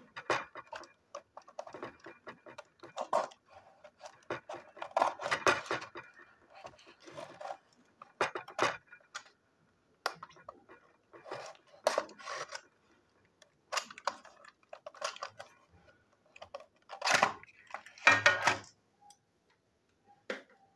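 Cardboard toy box being handled and worked open: irregular scrapes, taps and rustles with a few sharp clicks, the loudest two rustling scrapes near the end.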